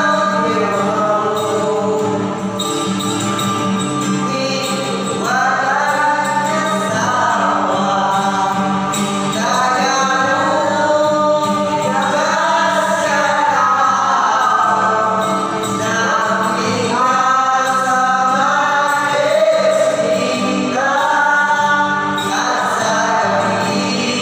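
Several young male voices singing a song together to a strummed acoustic guitar.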